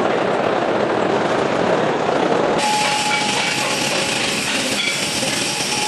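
Horizontal paper-and-plastic baler running: loud, steady machine noise. From about two and a half seconds in, a steady whine sits over it.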